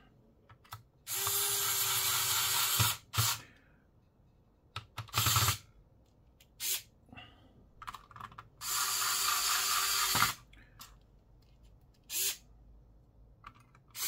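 Electric precision screwdriver driving a screw, its small motor running with a steady whine in two runs of about two seconds each, with a few brief blips between.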